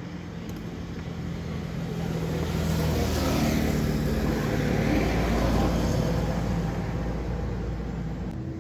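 A motor vehicle's engine running, growing louder to a peak past the middle and then fading, with its pitch shifting as it goes.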